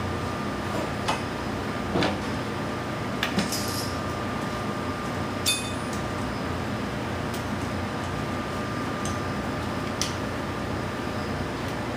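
A handful of light, scattered clicks and clinks as mask pieces are handled and fitted onto a metal aircraft wheel half, over a steady background hum.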